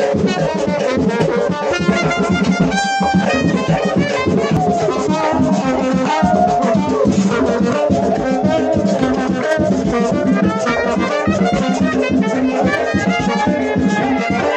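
Latin dance music led by brass horns over a steady, quick percussion beat.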